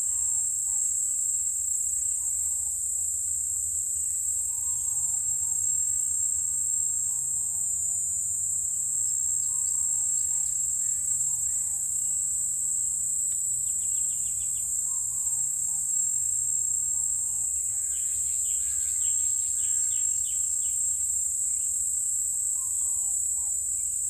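Steady, high-pitched drone of an insect chorus in forest undergrowth, with scattered short bird calls. A quick flurry of calls comes about eighteen seconds in.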